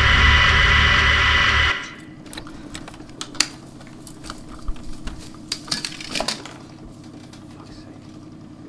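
A loud droning noise with a thin steady whistle cuts off suddenly about two seconds in. Then loose magnetic tape is pulled and handled by hand, giving soft crinkles and small clicks over a low hum.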